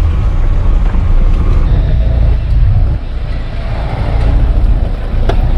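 Car driving, heard from inside the cabin: a steady low rumble of engine and road noise, with a brief click near the end.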